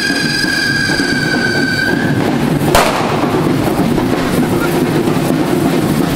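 Hand-held devils' fireworks in a correfoc: a steady, slightly falling firework whistle stops about two seconds in, and a single sharp bang follows a little later. After that comes the continuous crackling hiss of fireworks spraying sparks.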